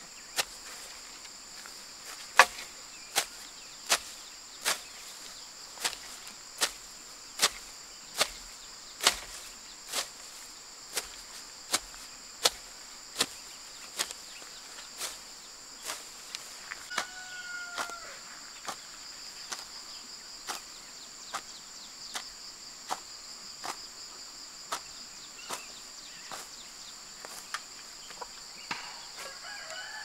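Hoe chopping into grassy soil in a steady rhythm, a sharp strike about every three-quarters of a second, the strokes softer in the second half. A steady high insect drone runs underneath, and a chicken calls about halfway through and again near the end.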